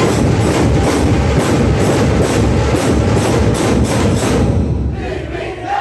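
A group of large Maharashtrian dhol barrel drums played together in a fast, loud rhythm, with a bright stroke about two and a half times a second. The drumming stops about four and a half seconds in, and a group shout begins at the very end.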